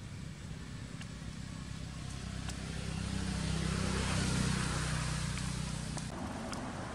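A motor vehicle passing by: engine hum and tyre noise swell to a peak about four seconds in, then fade away.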